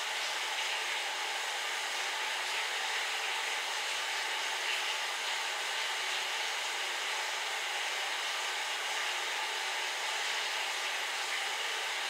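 Electric fan running with a steady, even hiss of moving air.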